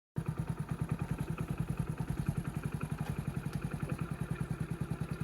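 A small engine running at idle with an even, rapid beat; it cuts in suddenly at the start and cuts off suddenly near the end.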